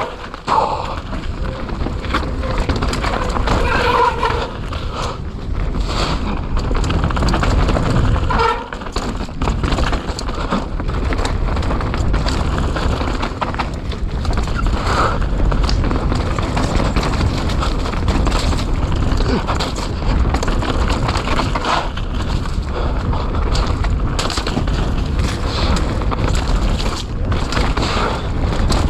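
Mountain bike ridden fast down a wet dirt trail: a steady rush of wind buffeting and tyre noise, with frequent knocks and rattles from the bike over rough ground.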